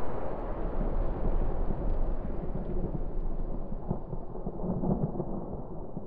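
Layered sound-effect rumble of the planet Alderaan exploding: a deep, slowly fading rumble, the tail of the blast, with scattered crackles through it.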